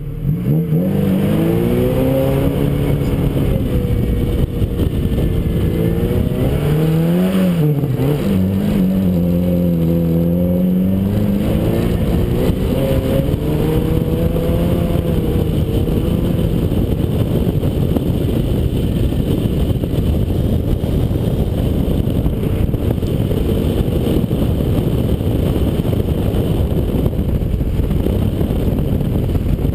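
Ford Escort rally car's engine pulling away hard on a dirt course, revving up and dropping back several times as it goes through the gears. Later the engine note is buried under a steady rush of wind and tyre-on-dirt noise.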